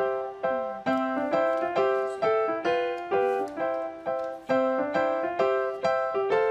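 Background music made of struck, pitched notes in a steady rhythm, about two new notes a second, each fading away after it sounds.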